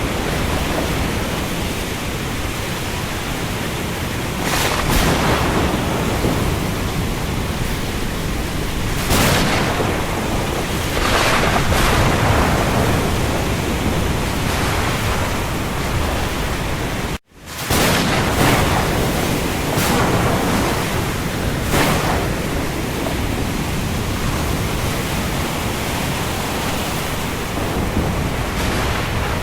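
Heavy rain falling on the open sea, a dense steady hiss with several louder surges that swell and fade. The sound drops out for a split second a little past halfway.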